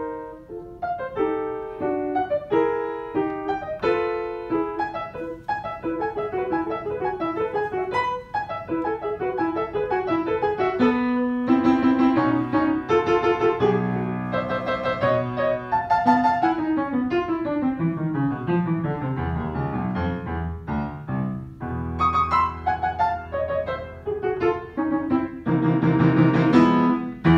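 Solo upright piano playing a lively piece: quick repeated notes and figures in the middle-upper range, then descending runs and low bass notes in the second half, building to loud final chords near the end.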